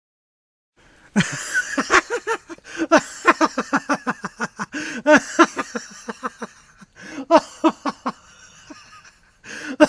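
Laughter in rapid, repeated short pulses, starting about a second in, easing briefly past the middle, then picking up again.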